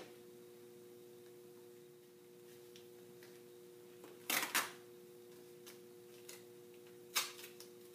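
Duct tape being pulled off the roll for wrapping: two quick rips about four seconds in and another near the end, over a faint steady two-note hum.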